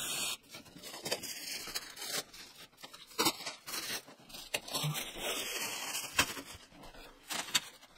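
Cellophane wrap being peeled and torn off a wood slat wall panel: irregular crinkling and tearing, with a few sharp clicks.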